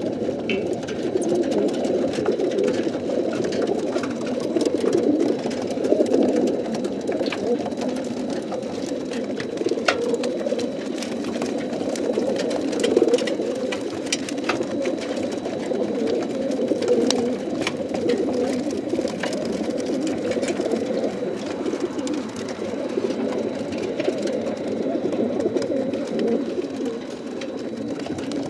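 A large flock of racing pigeons cooing together inside the crates of a transport truck, a dense, unbroken mass of cooing with scattered light clicks.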